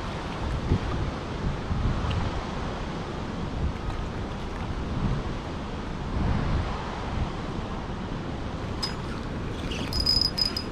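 Steady rush of water pouring through a spillway, mixed with wind buffeting the microphone. Near the end comes a short run of sharp clicks with a brief high whine.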